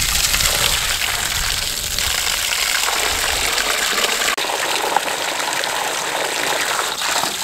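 Garden hose running full, its stream gushing and splashing into a galvanized metal stock tank with a steady hiss; after a brief break about four and a half seconds in, it is pouring into a black bucket.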